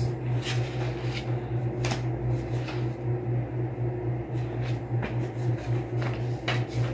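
Pages of a bound Qur'an being leafed through: a string of short papery flicks and rustles, several seconds apart, over a steady low hum.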